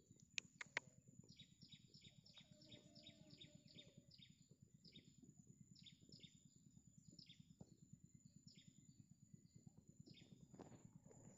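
Faint outdoor birdsong: a bird repeating short, downward-sliding chirps, about three a second, over a low rustle. Two sharp clicks about half a second in.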